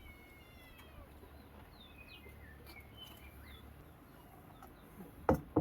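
Small birds chirping repeatedly in short, quick calls over a low outdoor hum. Near the end come two sharp knocks close together, the loudest sounds.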